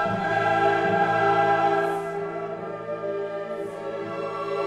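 Background music: a choir singing long, held chords.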